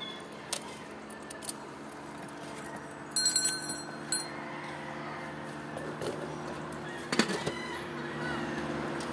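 Metal clinks and clatter from the stainless-steel canister lids of an ice cream cart being handled, loudest about three seconds in with a brief metallic ring and again about seven seconds in, over a steady low hum.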